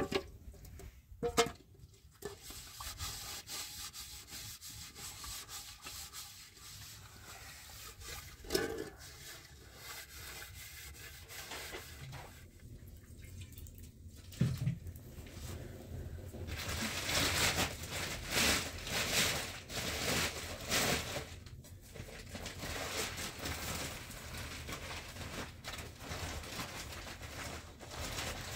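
A few knocks and clatters of household handwork, then a run of rhythmic rubbing and scraping strokes for several seconds in the middle, continuing more softly toward the end.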